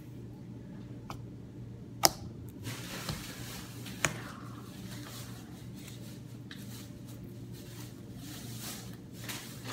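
Slime being kneaded and folded by hand as pigment powder is worked in, with sticky squishing and a few sharp clicks, the loudest about two seconds in.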